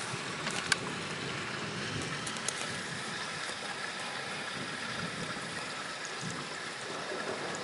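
Steady heavy rain falling in a thunderstorm, with a few sharp ticks, the loudest under a second in.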